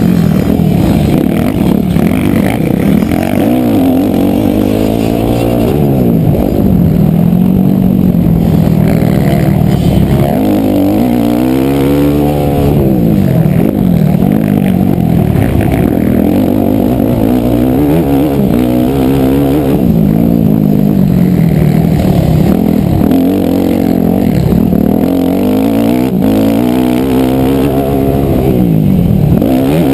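Motocross dirt bike engine heard from the rider's helmet camera during a race, its pitch rising and falling again and again as the rider throttles up and backs off through the track's turns and jumps.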